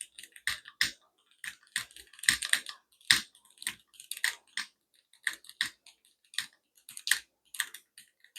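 Keys being typed on a mechanical keyboard: separate, irregular clacking keystrokes, about two or three a second.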